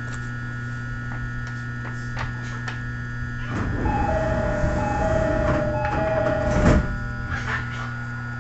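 E217-series train's doors closing while the car stands still: over the steady hum of the car, about three and a half seconds in the doors slide shut with a rushing noise while a two-tone door chime sounds three times, ending in a thud near the seven-second mark.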